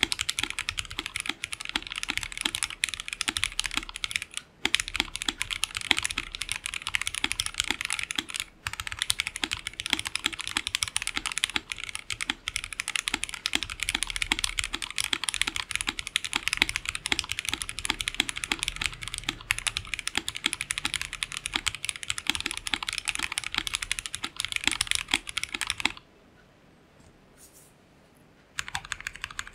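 Lapis60 full-acrylic, gasket-mount custom mechanical keyboard with JWK Black linear switches on a 1.5 mm acrylic plate, typed on quickly and continuously: a high-pitched, clacky keystroke sound. The typing stops for about two and a half seconds near the end, then starts again.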